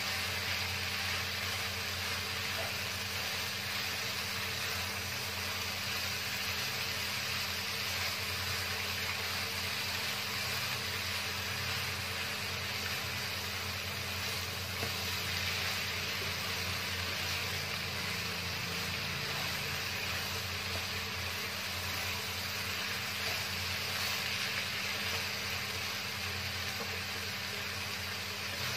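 Shredded vegetable filling of carrot, jicama and onion sizzling in a wok as it is stir-fried with a wooden spatula, being cooked down until its water is driven off. A steady low hum runs underneath.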